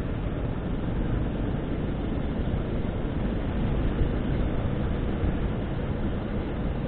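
Steady rumble of a motorcycle on the move, wind and engine blended into one even noise without a distinct engine note.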